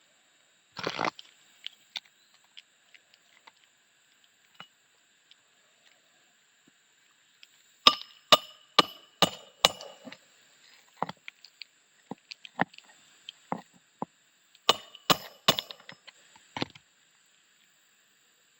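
Asphalt roof shingles being handled: a short crackle about a second in, then irregular sharp clicks and knocks, clustered in two quick runs of strikes.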